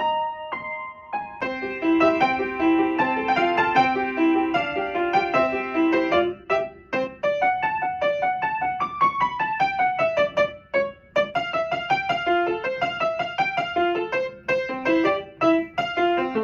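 Electronic school bell chime playing a melody in a piano-like tone. It opens with a few single notes, then from about a second and a half in a busier tune with chords.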